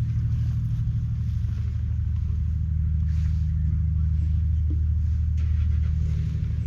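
1955 Landini L25's 4.3-litre single-cylinder two-stroke hot-bulb diesel engine running steadily with a deep, rapid chugging beat, getting slightly louder about three seconds in.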